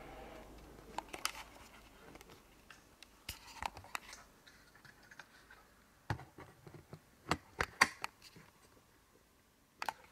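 Scattered handling noises: light clicks, taps and scrapes as a camera is moved and set down beside a table, with the busiest cluster of taps about seven to eight seconds in and a sharp knock near the end.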